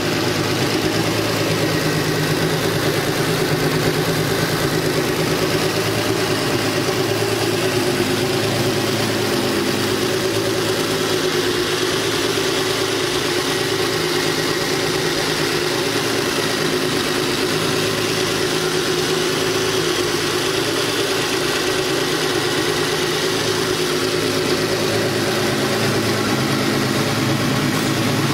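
Volkswagen Touareg's twin-turbocharged W12 engine idling steadily, an even hum with no revving.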